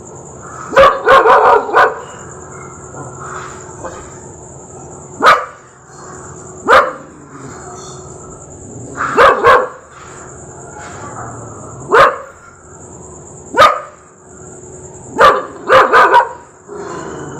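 Rottweiler barking in loud, sharp barks: a quick run of four about a second in, then single barks and pairs every few seconds, ending with another quick run of three.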